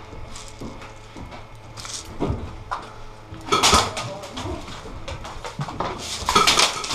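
Knocks, scuffs and clatter of a player moving around inside a steel shipping container, with footsteps and gear bumping the metal floor and walls. There are two louder, brief scraping rushes, about three and a half and six seconds in.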